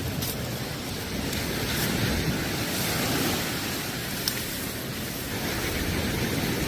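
Sea waves washing onto the shore, swelling about two seconds in, with wind on the microphone; a single sharp click about four seconds in.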